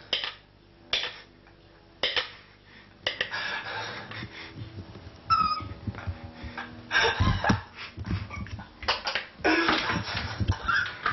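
A metal spoon knocking against a mixing bowl three times as peanut butter is scraped off it, followed by laughter and heavy breathing.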